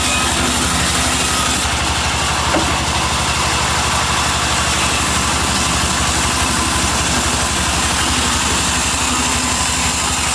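Sawmill machinery running steadily, with a fast, even low throb like an engine driving it.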